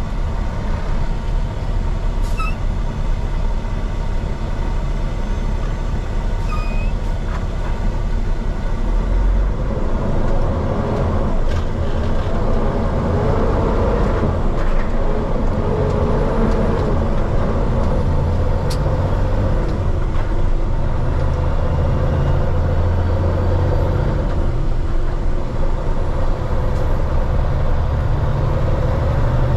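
Heavy diesel engine of a Peterbilt 389X tow truck running steadily under load, heard inside the cab with road noise, its low drone shifting slightly in pitch partway through.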